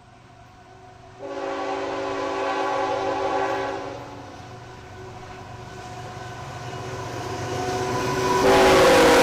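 Diesel freight locomotive's air horn: one long blast about a second in, then the rumble of the approaching train growing louder, and a second, louder blast starting near the end.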